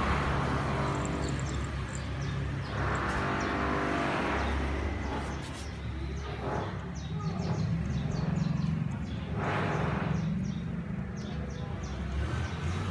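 Steady low rumble of road traffic, swelling twice. In the second half comes a run of faint quick clicks from a cat eating out of a plastic bowl.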